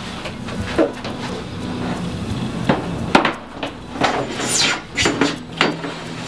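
Plastic water tray of an MK TX-4 wet tile saw being slid into the saw's metal frame: a series of knocks and clunks as it is handled and pushed in, with a falling squeal of the tray scraping along about four and a half seconds in.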